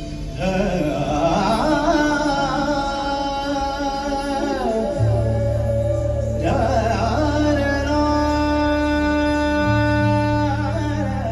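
Indian classical-inspired fusion music: a singer holds long, sliding notes. About five seconds in, a low steady tone joins underneath.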